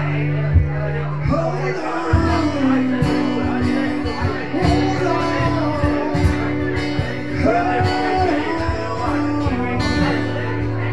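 Live acoustic guitar music from a two-piece band, with crowd chatter underneath.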